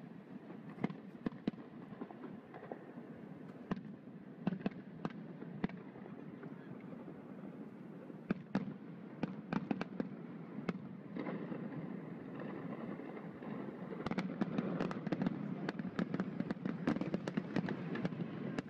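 Fireworks going off in a rapid, irregular series of sharp bangs and crackles, coming thicker and faster over the last few seconds.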